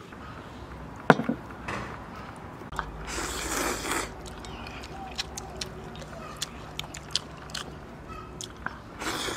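A man eating instant noodles: a long slurp about three seconds in and another short one near the end, with small smacking and chewing clicks between.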